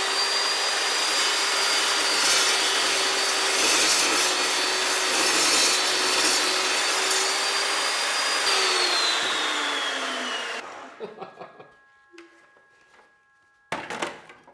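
Evolution S355CPSL 14-inch carbide-tipped metal-cutting chop saw running at full speed with a steady high whine while its blade cuts through 3/4-inch threaded rod, rougher and louder for a few seconds mid-cut. About eight seconds in, the whine falls as the blade winds down, and a few clicks and a sharp knock follow near the end.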